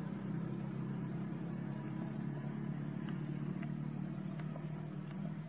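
Steady low hum of a running motor-vehicle engine, easing off near the end, with a few faint clicks over it.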